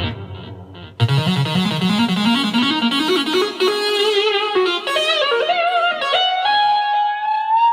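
Yamaha MO6 synthesizer playing a guitar-like lead patch. A note fades away, then about a second in a new line starts low and climbs in steps with vibrato to a high held note.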